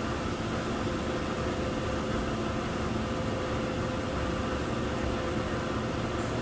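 Jet fabric-dyeing machinery running steadily: a continuous hum and hiss with a constant low tone.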